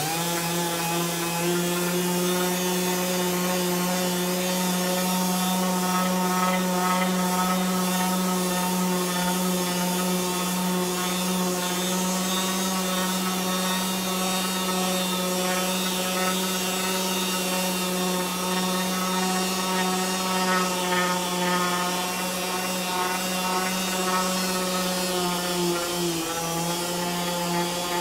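Pneumatic random orbital sander running on a black walnut board: a steady whine with hissing air. It starts abruptly and dips slightly in pitch near the end.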